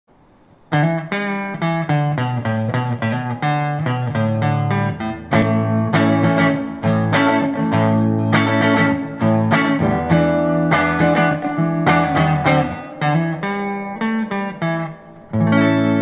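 Electric guitar, a parts-built Telecaster played clean on its neck pickup through a Yamaha THR5 practice amp with a little reverb, recorded from the amp on a phone. A quick run of picked notes and chords starts about a second in and goes on without a break, ending with a struck chord that keeps ringing.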